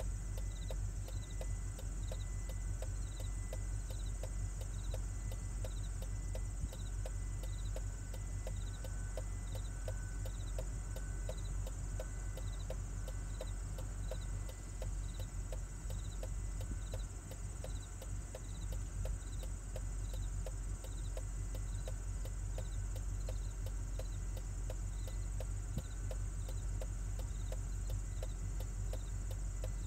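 Steady outdoor background of evenly repeating high chirps, about one to two a second, over a constant low rumble; the warning siren is not sounding yet.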